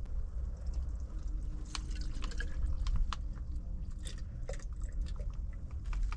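Water dripping and splashing in small, irregular drops, over a steady low rumble.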